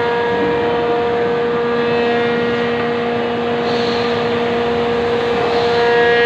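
Factory machinery running steadily: a loud, even hum with a held whine of several tones over a noisy background.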